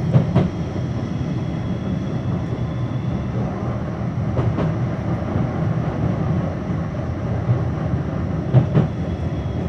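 Blackpool tram running along its track, heard from inside the car: a steady low rumble with a few sharp clacks, just after the start, about halfway and near the end.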